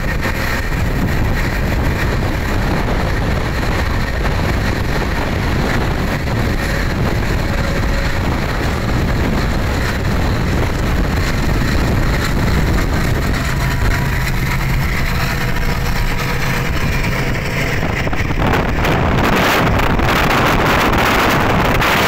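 Steady rumble and clatter of trains running side by side: a diesel-hauled double-stack container freight on the parallel track, heard from a moving train. About three-quarters of the way through, heavy wind noise on the microphone comes in over the train noise.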